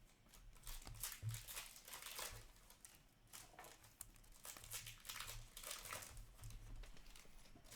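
Faint, irregular crinkling and rustling of trading-card pack wrappers and cards being handled.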